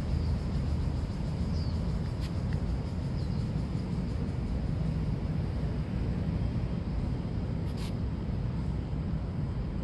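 City park ambience: a steady low rumble, with a few faint high chirps in the first three seconds and two brief hissing sounds about two and eight seconds in.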